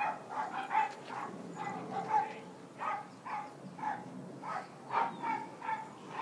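A dog barking repeatedly in short, quick barks, about two or three a second.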